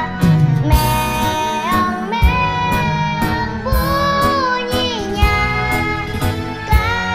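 A child singing a children's song over backing music with a steady drum beat.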